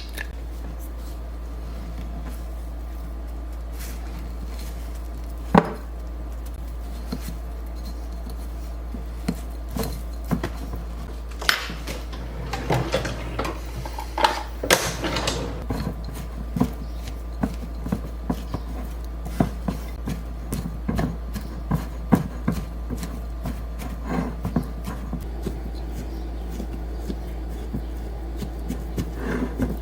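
Kitchen work sounds: scattered clinks and knocks of utensils and dishes on a counter, one sharp knock about five seconds in and a busy run of clatter around the middle, over a steady low hum.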